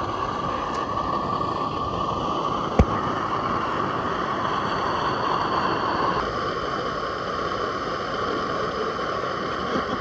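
Steady hissing of a 32mm live steam model locomotive in steam, with a steady whistle-like tone in the hiss that drops slightly about six seconds in. A single sharp click about three seconds in.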